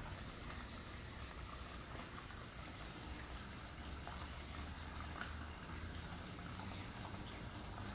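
Steady trickle of running water from a small decorative tap-shaped fountain, with a faint low hum underneath.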